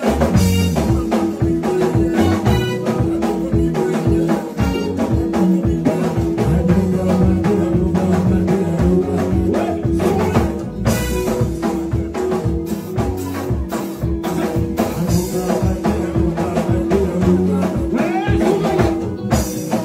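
Loud music with a steady drum beat and a sustained bass line, with singing faintly in the mix.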